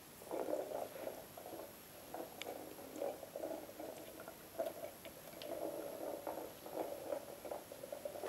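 A small red ball rolling and bumping over a laminate floor and doormat as a cat pushes it along with its nose and paws, an uneven rumble with a few light taps.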